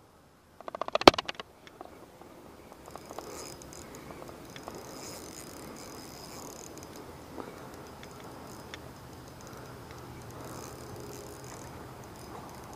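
Spinning reel being cranked as a hooked fish is reeled in: a short burst of rapid clicking about a second in, then a low steady whir from the reel.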